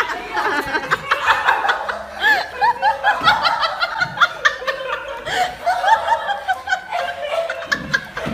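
A person laughing in quick, high-pitched snickers, with short sharp taps mixed in.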